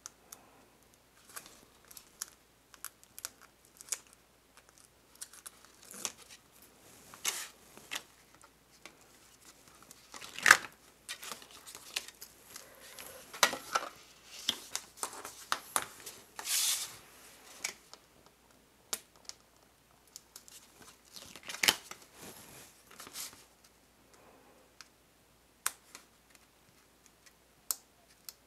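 Stiff cardstock being handled, folded and rubbed down, with scattered sharp taps and short scratchy rustles. Among them is the red liner of double-sided adhesive tape being picked up with a pointed tool and peeled off, a brief tearing sound that comes several times.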